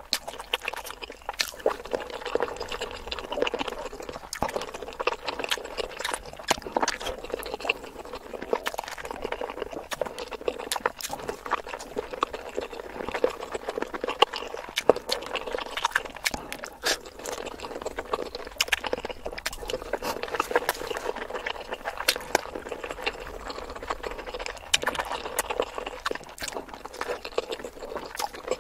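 Close-miked wet chewing and lip smacking of whole boiled eggs coated in a thick spicy sauce, with many small sticky clicks and squelches running without a break.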